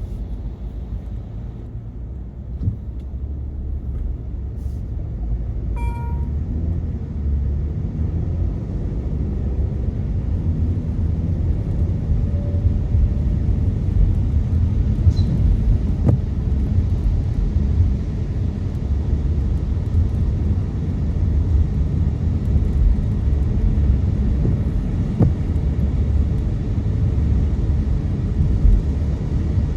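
Car road noise and engine rumble heard from inside the cabin while driving, growing louder over the first ten seconds or so as the car picks up speed, then holding steady. A short electronic beep sounds about six seconds in.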